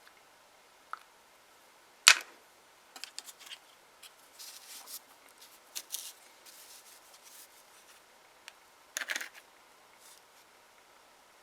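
Small nail-stamping tools being handled on a work surface: one sharp click about two seconds in, then scattered light clicks and short scraping strokes, with another cluster of clicks near the end.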